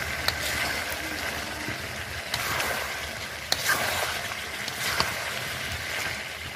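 Chicken and potato pieces in spice paste sizzling in oil in a metal pot as they are slow-fried (kosha) and stirred with a spatula, with a few sharp knocks of the spatula against the pot.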